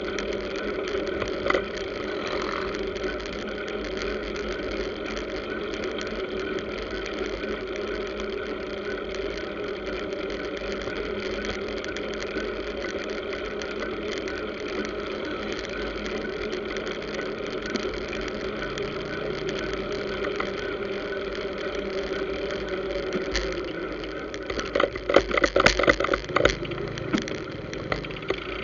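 Steady engine drone of road traffic, motorcycles and cars, heard while riding in among them. A run of sharp knocks and rattles comes near the end.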